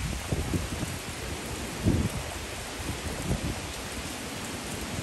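Steady hurricane rain falling, with two brief low rumbles about two and three and a half seconds in.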